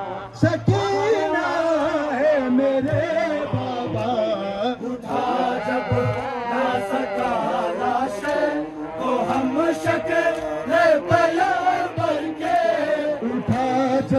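Men's voices chanting a Shia noha (mourning lament) together in a slow, rising and falling melody, with scattered dull thuds beneath.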